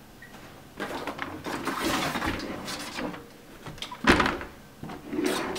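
Rustling and handling noise around a wooden pantry door, with a sharp knock about four seconds in.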